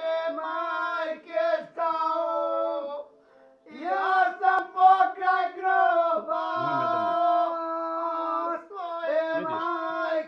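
A man singing with long held, wavering notes, with a short break for breath about three seconds in.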